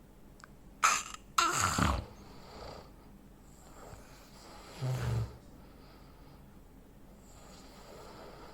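A man snoring with obstructive sleep apnea. About a second in, after a quiet stretch, comes a loud two-part gasping snort as breathing restarts, typical of the end of an apnea pause. A shorter, low snore follows about five seconds in, with faint breaths around it.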